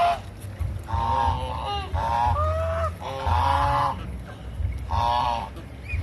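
Chinese geese honking, about five loud nasal calls one after another, with a low rumble underneath.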